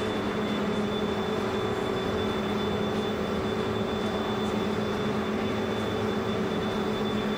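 Shot blasting machine for aluminium profiles running steadily: an even mechanical hum with a thin, steady high whine over it.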